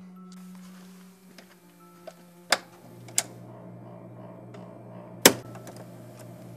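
Reel-to-reel tape recorder being worked by hand: its keys clack down in three sharp clicks, about two and a half, three and five seconds in, the last the loudest. A low steady hum sets in with the first click.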